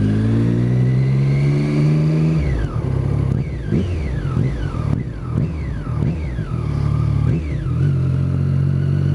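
Triumph motorcycle engine under way: the engine note rises as it accelerates for about two and a half seconds, then falls and rises again several times, about once a second, before settling to a steadier note near the end.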